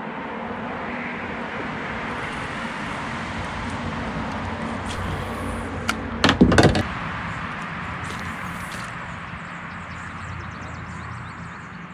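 Steady rush of flowing river water, with a short cluster of loud knocks about six seconds in.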